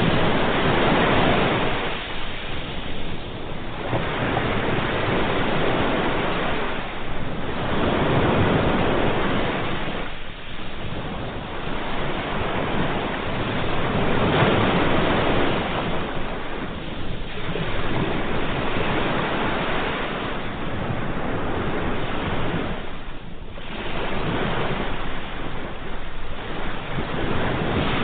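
Ocean waves breaking and washing on the shore: a continuous surf that swells and eases every few seconds.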